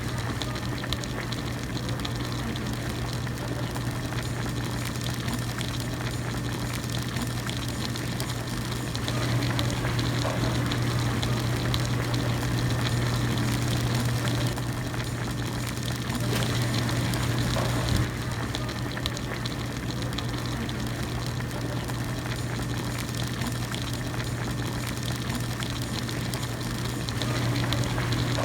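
Hot pot broth boiling steadily in a single-serving pot, a continuous bubbling with small pops over a steady low hum.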